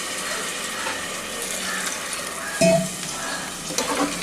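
Onion-tomato masala cooking in a pot, sizzling steadily as it is stirred, with a short knock about two and a half seconds in.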